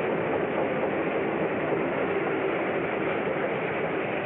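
A train running past a station platform, a steady, unbroken rolling noise of its cars and wheels.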